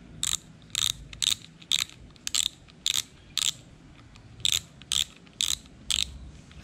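Front drag knob of a Shimano Sienna 2500 FE spinning reel clicking as it is unscrewed by hand to take off the spool, its drag clicker ticking about twice a second. The clicks pause briefly near the middle and then resume for four more.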